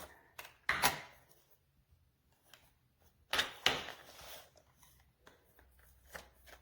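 Handling noises, most likely from a hardside suitcase being worked by hand: a short sharp knock about a second in, then a louder scraping clatter about three and a half seconds in, lasting under a second.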